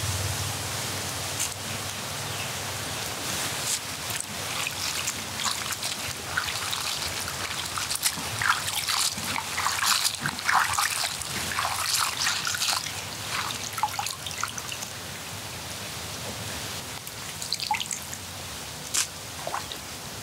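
Water dripping and trickling in irregular small splashes over a steady hiss, busiest in the middle and with a few more drips near the end.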